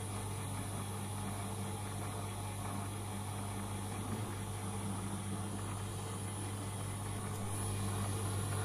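Fellowes paper shredder giving a steady low electric hum, with no paper being cut.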